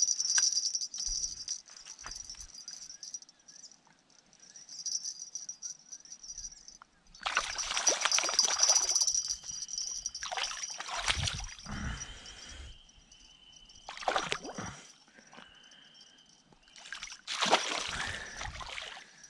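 Carp thrashing and splashing in shallow, muddy creek water at the bank in several short bursts, the loudest near the end.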